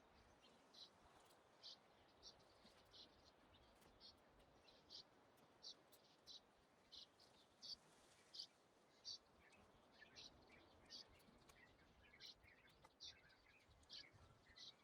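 Faint bird calls in woodland: a short high note repeated about once a second, with softer, lower chirps joining in about two-thirds of the way through.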